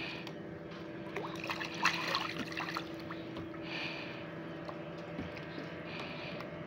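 Sea water lapping and splashing against the side of a boat, with a louder burst of splashing about two seconds in, over a steady low hum.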